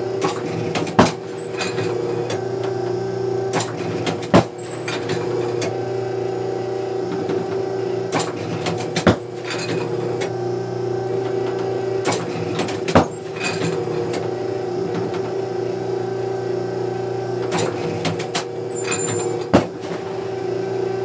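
Automatic clay-target trap machine humming steadily, with a fainter clack followed by a loud sharp report five times, a few seconds apart: targets being released from the machine and shot at during a round of trap.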